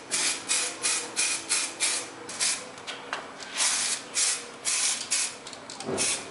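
Aerosol spray paint can hissing in short, rapid bursts, about three a second with one longer spray near the middle, as it puts a coat of paint on a steel bicycle frame.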